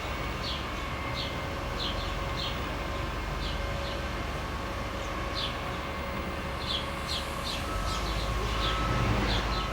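A passing train's steady low rumble, with a few steady tones in it, growing louder near the end. Birds give short, high chirps over it every second or so.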